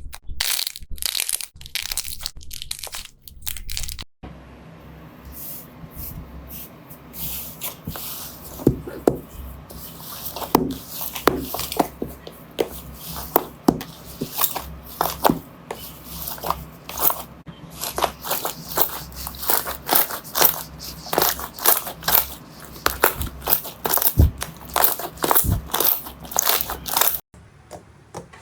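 Slime being squeezed and pressed by hand, giving dense, irregular crunchy crackles and pops. The sound changes abruptly about four seconds in, and after that a faint steady low hum runs under the crackling.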